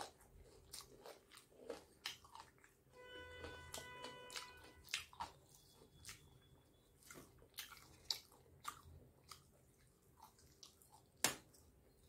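Close-up chewing of crispy fried chicken: wet mouth clicks and crunches of the breaded coating, with a sharp snap near the end as a leg piece is pulled apart. A brief pitched tone with several overtones sounds about three seconds in.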